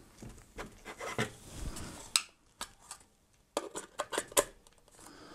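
Light clicks, taps and scrapes of a clear acrylic 3D illusion lamp panel being handled against its black plastic base. There is a quiet pause a little past halfway, then a cluster of clicks.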